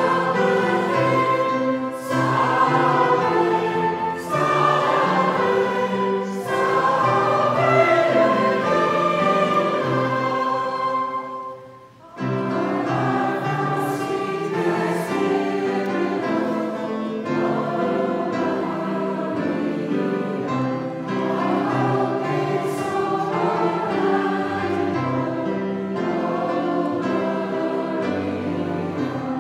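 Congregation of men and women singing a hymn together in unison, with a short break in the singing about twelve seconds in before the next line begins.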